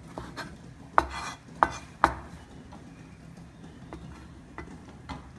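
Kitchen knife chopping soft roasted chilies on a plastic cutting board: irregular sharp knocks of the blade against the board, the three loudest a little after one and two seconds in.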